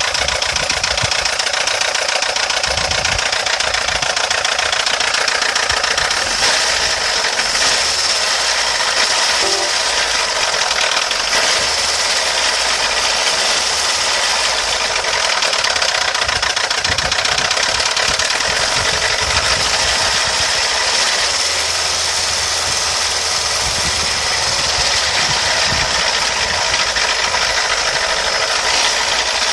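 UAZ engine running at a steady idle with a continuous mechanical knock from a worn camshaft gear.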